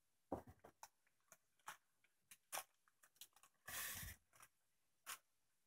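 Clear plastic packaging being handled and crinkled, in a string of short crackles and clicks, with a longer rustle about four seconds in.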